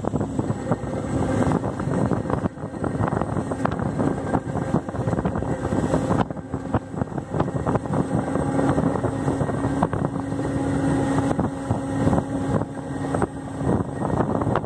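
Motorboat engine running steadily under way, a constant hum, over the rush of water churning in the wake, with wind buffeting the microphone.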